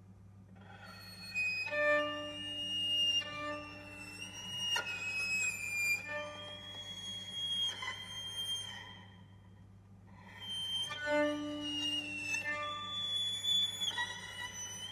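Solo violin playing unaccompanied: two phrases with long held high notes, separated by a brief lull about ten seconds in.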